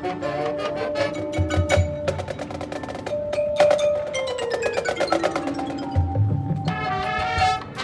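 Marching band music with percussion prominent and quick pitched notes; about three and a half seconds in, a fast run of notes falls steadily in pitch for about two seconds.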